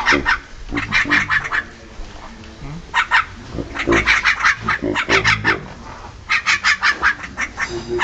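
Caged Javan mynas (jalak kebo) calling in harsh, rapid chattering bursts of quickly repeated notes, several bursts in a row.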